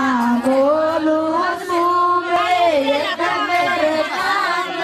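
Women's voices singing a slow melody with long held notes.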